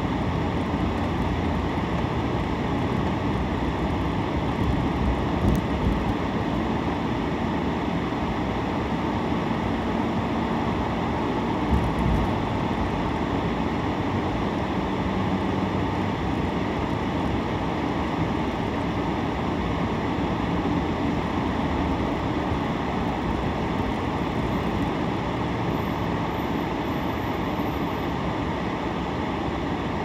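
Steady road and tyre noise with engine hum, heard from inside a moving car's cabin, with two brief low thumps about five and twelve seconds in.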